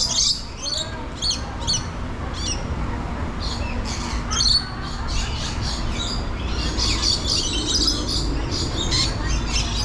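Lorikeets screeching: many short, harsh, high-pitched calls one after another, crowding into a dense chatter about seven seconds in.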